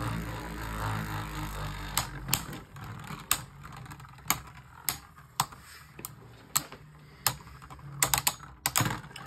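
Beyblade Burst tops (Wyvron W2 against Odax O2) spinning in a plastic stadium. There is a steady whirr for about two seconds, then a string of sharp clicks about one a second, bunching together near the end, as the tops strike.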